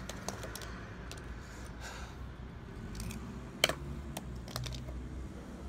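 A knife prying and stabbing at the lid of a tin can of baked beans: scattered metallic clicks and scrapes, with one sharper click about three and a half seconds in, over a steady low hum.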